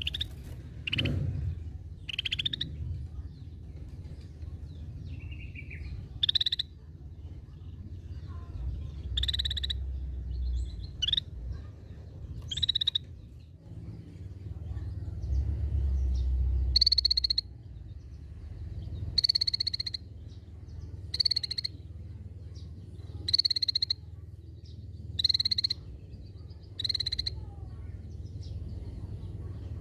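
Scaly-breasted bulbul (cucak bersisik) giving short, harsh call notes again and again, irregular at first and then about every two seconds, over a low background rumble.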